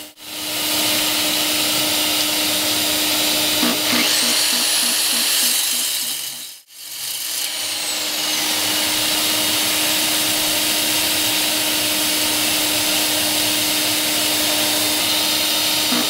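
AGP DM52D diamond core drill dry-coring into brick with percussion on, running steadily together with a vacuum cleaner that pulls the dust away through a collector pad. The sound breaks off sharply for a moment a little before halfway, then the drilling goes on.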